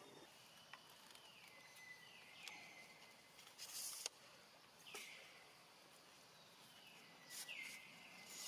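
Faint outdoor background with a high call that slides down and settles into a steady whistle, recurring four times, a short hiss a little after three seconds, and one sharp click about four seconds in.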